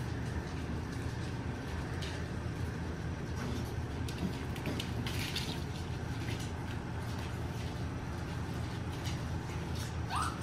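Steady low hum, with light scratches and clicks of puppies' claws and paws on a laminate floor, and a short rising squeak near the end.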